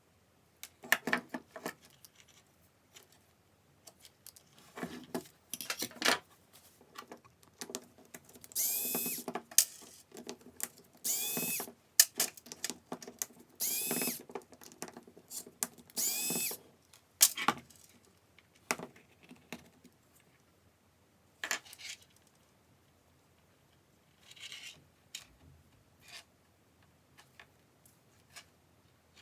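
A small cordless power-tool motor runs in four short bursts of about a second each, spinning up at the start of each. Clicks and knocks of handling parts come before and after the bursts.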